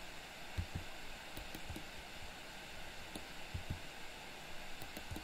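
Scattered faint clicks and taps of a computer mouse and keyboard keys over a steady low hiss.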